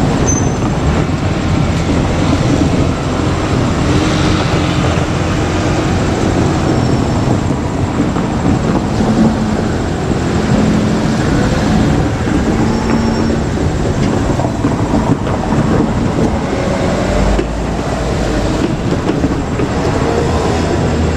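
JR Kyushu KiHa 200 diesel railcar running, with a steady engine drone and rumbling running noise whose pitch shifts a little as it goes.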